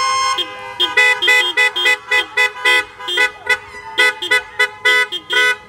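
Several car horns honking in a drive-by car parade, many short toots of different pitches overlapping, about three a second, after one held horn note that stops about half a second in.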